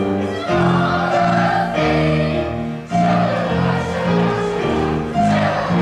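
Stage cast singing together in chorus over musical accompaniment, a musical-theatre ensemble number with held, sustained notes.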